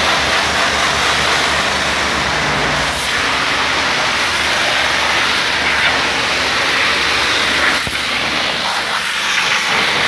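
High-pressure washer lance spraying a jet of water into a car's interior and over the seats: a steady, loud hiss.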